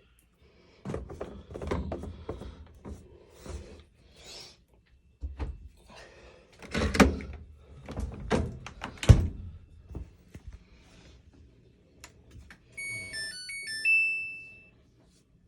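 Clunks and knocks as the Samsung washing machine's detergent drawer and door are handled. About thirteen seconds in, its control panel plays a short tune of electronic beeps ending on a longer held tone.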